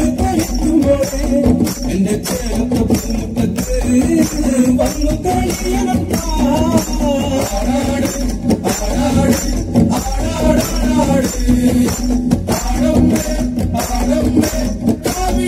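Kaikottikali folk song accompanying the dance: a voice singing a wavering melody over a percussion beat.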